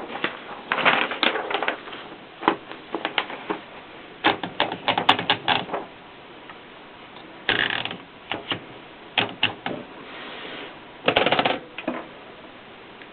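Triumph Norm 6 manual typewriter being typed on: sharp key strikes in irregular clusters, with a few longer rattling runs between them.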